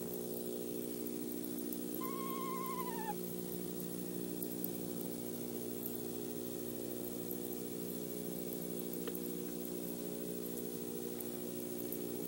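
Eastern screech owl gives one short quavering call about two seconds in, lasting about a second and dropping in pitch at the end. A steady low hum runs underneath.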